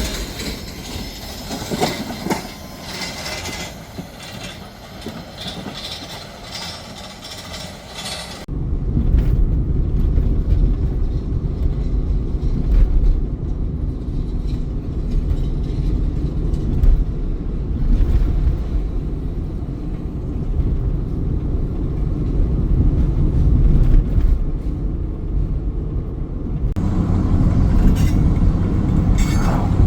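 Freight train rolling past: a loud low rumble with the steady clatter of wheels over the rail joints, which starts suddenly about eight seconds in after a quieter stretch of steady background noise.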